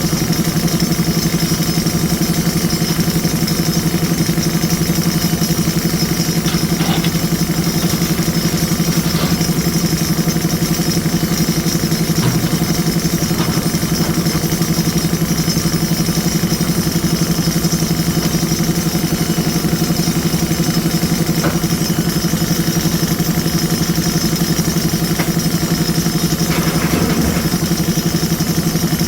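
JCB 3DX Super backhoe loader's diesel engine running steadily, with a few light clanks from the machine working.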